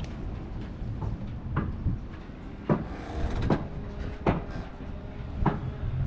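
Several sharp knocks and clunks at irregular intervals over a steady low rumble.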